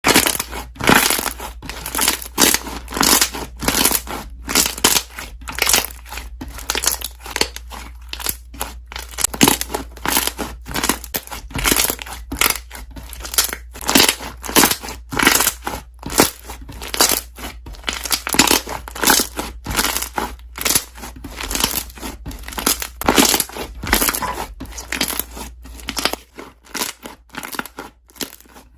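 Slime being squeezed and pressed, trapped air bubbles popping in a rapid, continuous run of crackling clicks, several a second.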